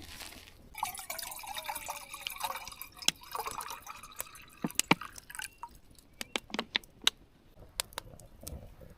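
Water being poured into a pot for a few seconds, followed by scattered light clinks and knocks.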